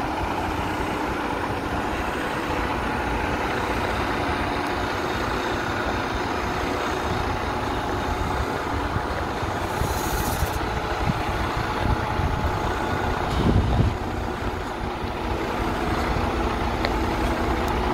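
Semi-truck diesel engine idling steadily, most likely the Western Star 4900SF's Detroit DD16. A brief hiss comes about ten seconds in, and a louder low thump a little later.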